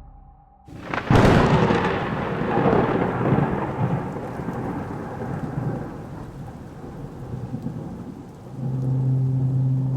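A sudden thunderclap about a second in, rolling off into a long rumble that fades over several seconds. A low, steady music drone comes back in near the end.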